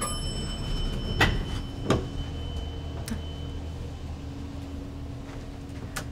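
Elevator car: a single bell-like chime that rings out and fades over a few seconds, then a few sharp knocks from the doors and car over a steady low hum.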